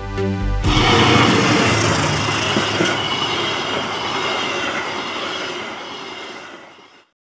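Passenger train rolling past close by: a steady rush of wheel-on-rail noise with a faint high squeal, starting suddenly about a second in after a short bit of electronic music, then fading and cutting off near the end.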